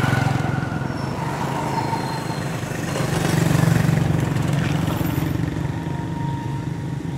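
Motor vehicle engine noise from passing traffic, a steady low hum that swells near the start and again around three to four seconds in.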